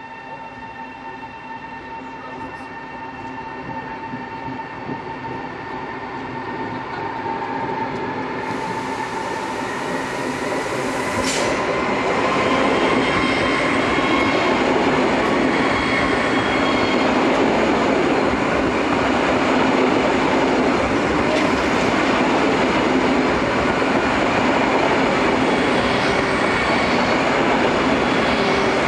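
Pendolino ED250 (ETR 610) electric trainset pulling into the station. Its rolling noise grows louder over the first twelve seconds and then holds steady as the cars pass close by. A thin whine fades out by about ten seconds in.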